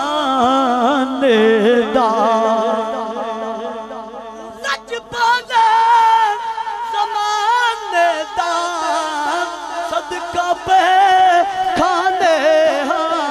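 A man singing a naat without instruments into a microphone, holding long drawn-out notes that waver in pitch.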